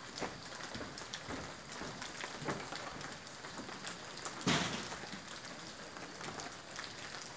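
Rain falling steadily on a surface, with a brief louder rush of noise about halfway through.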